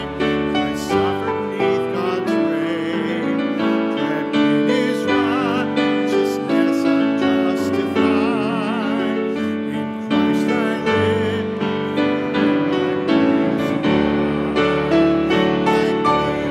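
A congregation singing a slow hymn with piano accompaniment, with one lead voice singing with vibrato that stands out.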